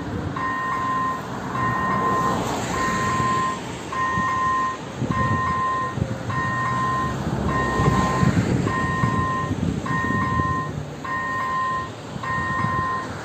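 Electronic warning bell of an AŽD level crossing sounding while the crossing is closed for an approaching train. It gives a steady electronic beep about once every 1.2 seconds, with a low rumble underneath that swells in the middle.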